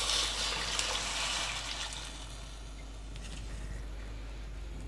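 Water pouring from a plastic jug into a steel pot of chicken pieces, the rush tapering off over about two seconds and leaving a faint steady hiss.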